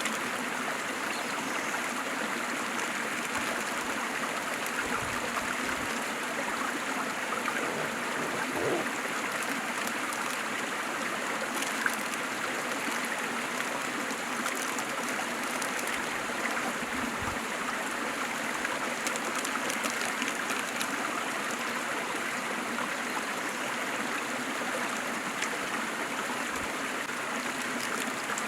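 Waterfall water rushing and splashing steadily, an even unbroken roar of falling water, with a single brief sharp splash or tick near the middle.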